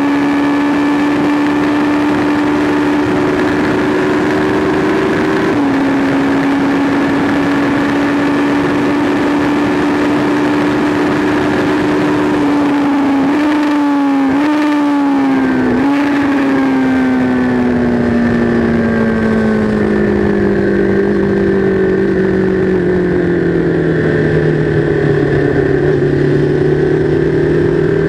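Sport motorcycle engine at high revs on a racetrack, with a steady rush of wind noise. Its pitch drops suddenly about five seconds in as it shifts up into sixth gear, wavers briefly in the middle, then falls steadily as the bike slows and comes down to third gear for a corner, settling at lower revs near the end.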